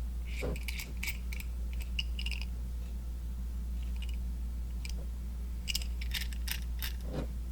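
Small metallic clicks and rattles from a 6-inch adjustable wrench being handled, its jaw worked back and forth on the worm screw. They come in two spells, one near the start and one near the end. The clicking comes from a little play in the jaw. A steady low hum runs underneath.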